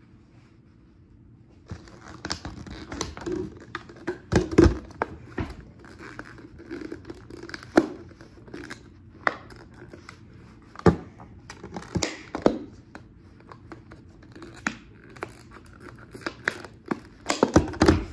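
Scissor points stabbing holes into a thin plastic soda bottle, with irregular sharp cracks as the plastic gives way and crinkling as the bottle is squeezed and turned. It starts about two seconds in.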